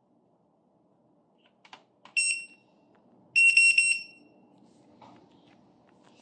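Ness D8x touchscreen alarm keypad beeping as its screen is tapped: one beep about two seconds in, then a quick run of four or five short beeps a second later, with faint finger taps between.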